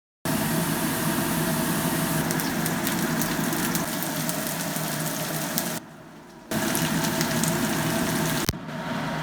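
Pumpkin and rice noodles sizzling as they are stir-fried in a pan: a steady hiss over a low hum. It drops off briefly near the middle, and there is one sharp click near the end.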